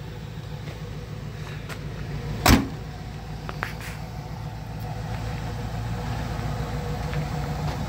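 1979 Lincoln Continental's V8 idling steadily. About two and a half seconds in, the car's door is shut with a single heavy thud.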